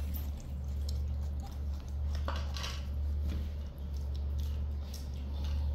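A steady low hum, with a few light clinks of ceramic plates on a tiled floor a little over two seconds in as small monkeys pick food from them.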